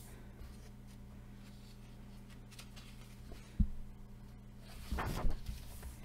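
Paper coloring-book page being turned by hand: a single sharp tap a little past halfway, then a short papery rustle about five seconds in as the next page is flipped and smoothed flat. A faint low hum lies underneath.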